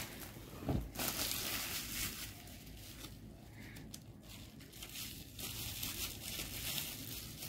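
Clear plastic wrapping crinkling and rustling as it is pulled apart and crumpled by hand, loudest in the first few seconds, with a short sharp crackle a little under a second in.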